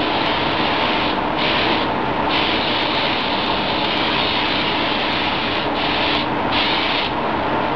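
Spray gun hissing as compressed air atomises paint. The hiss starts and stops with the trigger: one long pass broken by several short pauses. A steady hum runs underneath.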